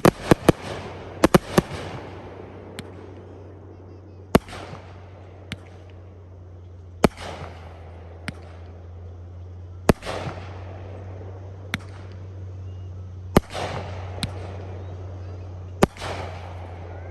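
Fireworks bursting overhead: a quick cluster of sharp bangs at the start, then one loud bang about every three seconds, each trailing off in an echoing rumble, with smaller pops in between. A steady low hum runs underneath.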